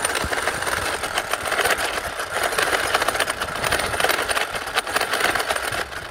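Traxxas X-Maxx RC truck's drivetrain spinning with the wheels off the ground, its damaged differential crown and pinion gears grinding in a rapid clatter of clicks. The clatter swells and eases several times; it is the sign of chipped or stripped diff gear teeth.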